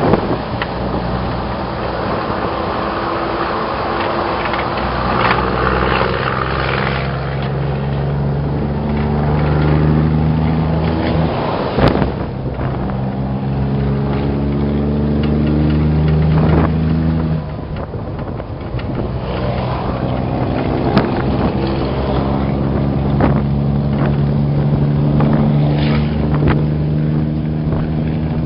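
Scania R420 truck engine with an open exhaust pulling hard under acceleration, rising in pitch and dropping back at upshifts about 12 and 17 seconds in, over road and wind noise.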